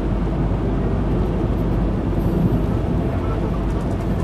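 Steady engine and tyre rumble of a car driving, heard from inside the cabin.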